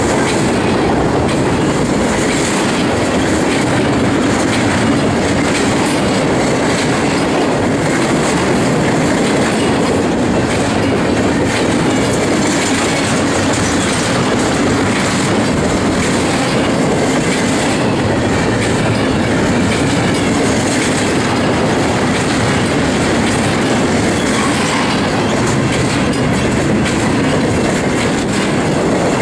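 Double-stack container train's well cars rolling past close by: a steady, loud rumble of steel wheels on rail with clickety-clack from the wheels crossing rail joints.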